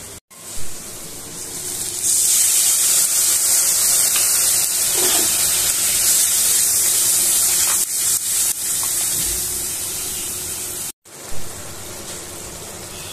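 Curry sizzling loudly in a hot iron wok as it is stirred with a spatula. The sizzle jumps up about two seconds in and cuts off sharply near the end.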